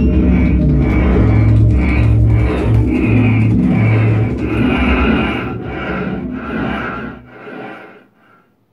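Improvised modular synthesizer music from Ciat-Lonbarde Plumbutters and an E-mu modular: held bass notes under a choppy, pulsing electronic texture. It fades out over the last few seconds.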